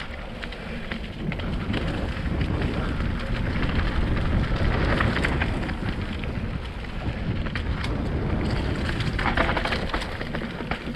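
Mountain bike rolling fast down a dirt forest trail: tyres crunching and crackling over dirt and leaf litter and the bike rattling over bumps, with a constant rumble of wind on the microphone.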